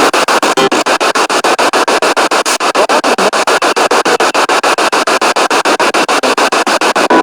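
Spirit box sweeping through radio stations: loud static chopped about ten times a second, with brief snatches of broadcast sound between the cuts.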